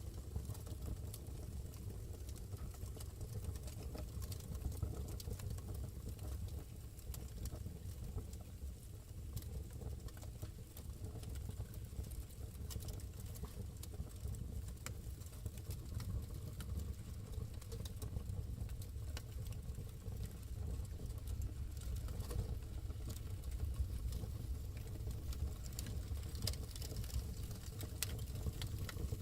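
Wood fire burning in a fireplace: a steady low rumble of the flames with frequent small crackles and pops from the logs.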